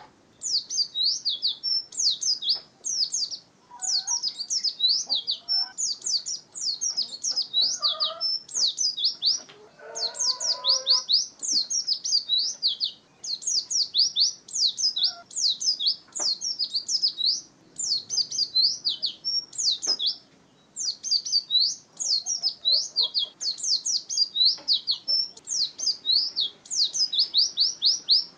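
White-eye (pleci) singing a fast, high-pitched chattering song: rapid rising and falling notes in bursts of a second or two, with short pauses between bursts.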